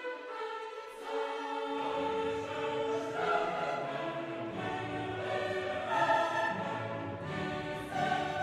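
Background music with a choir over an orchestra, singing held chords; a low bass part comes in about two seconds in.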